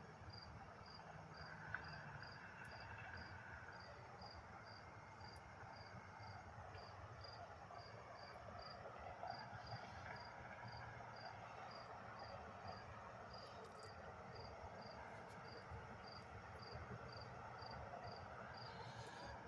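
Faint, evenly spaced high insect chirps, about two a second, over a low steady background hiss.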